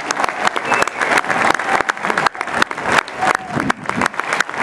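Crowd applauding: dense, irregular hand clapping from many people.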